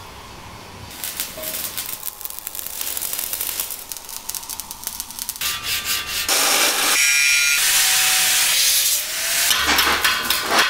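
Hand sanding a white filler-coated panel with sandpaper: repeated rasping strokes back and forth, louder in the second half, with a few brief squeaks near the end.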